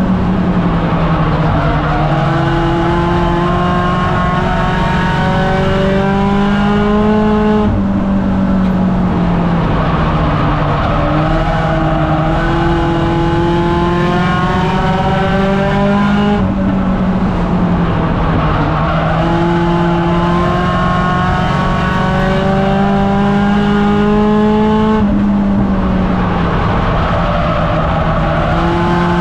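Race car engine heard from inside the cockpit, running hard at speed: its pitch climbs steadily, then falls off sharply as the driver lifts, three times about nine seconds apart, once each lap of the short oval.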